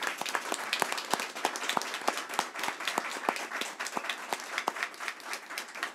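A small group of people applauding steadily, many hands clapping together.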